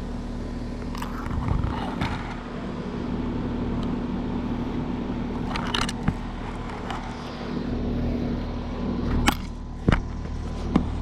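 2024 Carrier Comfort 16 central air conditioner condenser running steadily in cooling mode: its LG scroll compressor hums at a steady low tone under the outdoor fan's noise. A few sharp clicks and knocks come through over the top.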